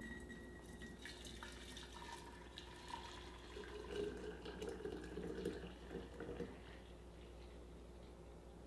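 Freshly boiled maple syrup poured in a thin stream into glass jars: a faint trickling and dripping, strongest near the middle.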